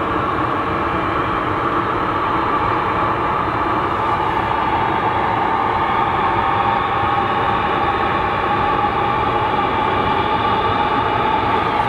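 Airbus A220-300's Pratt & Whitney PW1500G geared turbofan engines running at takeoff power on the departure roll: a loud, steady jet rush with a whining tone that drifts slightly lower in pitch.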